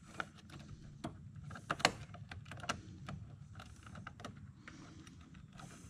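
Faint scattered clicks and light knocks of crimped wire ring terminals being handled and stacked onto a truck battery's ground terminal, the sharpest click a little under two seconds in, over a low steady hum.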